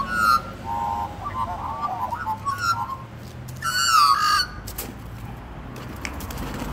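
Australian magpies calling while fighting on the ground: a run of squawking and warbling calls, with the loudest, harshest call about four seconds in.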